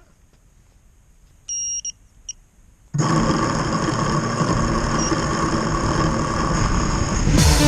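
Wizard X220 FPV quadcopter beeping twice, one longer tone then a short one, typical of arming; about a second later its motors and propellers start with a loud, steady whine and rush of air.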